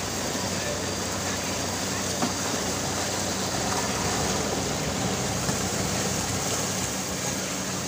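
Speedboat outboard motor running steadily at cruising speed, a low even hum under the rush of water from the hull and wake.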